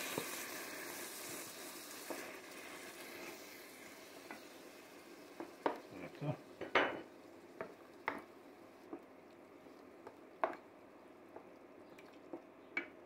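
Vegetables sizzling in a pot die down as puréed tomato is poured over them, then a wooden spoon stirs the thick sauce, knocking against the pot now and then.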